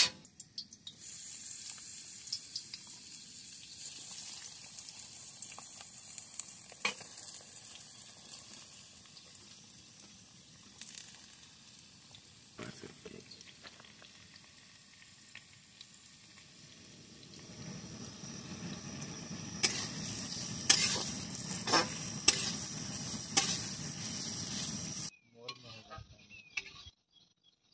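Sliced onions frying in hot oil in a steel kadai on a portable gas stove. The sizzling starts about a second in, eases off in the middle, then grows louder near the end, with a metal spatula scraping and clinking against the pan. It cuts off suddenly shortly before the end.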